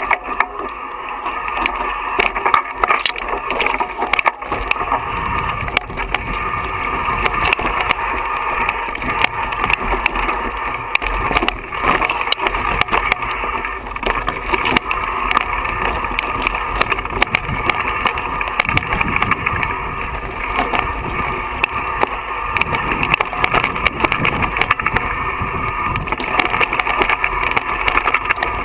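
Mountain bike rattling and clattering down a rocky trail: tyres crunching over loose stones, with many sharp knocks from the bike jolting over rocks.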